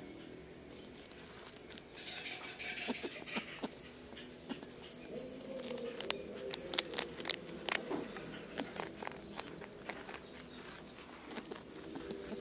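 Pet rabbit eating a treat: a run of sharp crunching clicks, thickest in the middle, with the small bells on its collar jingling. About two seconds in it makes its happy noise.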